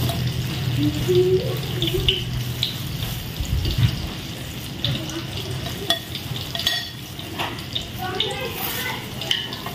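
Water running from a kitchen tap, with short clinks and knocks of utensils.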